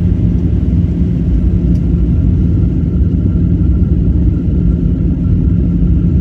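Steady, loud low rumble of a moving vehicle heard from inside, with a constant low hum and a faint steady higher tone.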